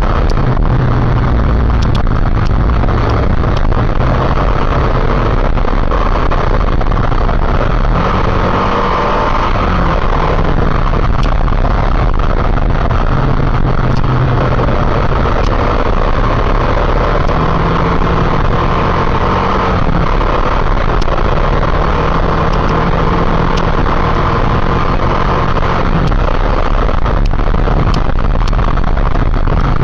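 Motorcycle riding at speed: engine running under a steady, loud rush of wind on the microphone, with the engine's pitch shifting a few times.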